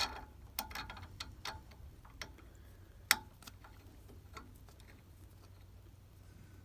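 Irregular light clicks and taps, a dozen or so over about four seconds, the sharpest about three seconds in, over a faint low steady hum.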